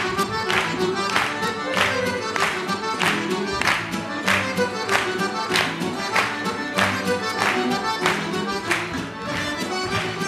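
Live Banat folk dance music from a small band led by accordion with violin, at a quick steady tempo. A sharp percussive accent lands on every beat, a little more than one a second and a half.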